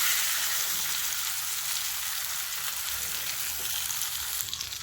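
Masala-coated pomfret fish frying in hot oil in a pan, a steady sizzle that eases off slightly toward the end.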